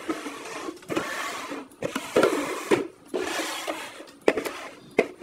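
Upturned plastic bowls slid and shuffled across a tabletop: several stretches of scraping, each about a second long, with a couple of sharp knocks of hand or plastic near the end.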